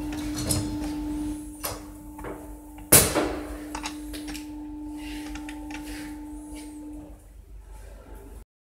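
Metal clicks and clinks of a dual-clutch installation tool being handled on a DSG gearbox, with one sharp metallic knock about three seconds in. A steady hum runs underneath and stops near the end.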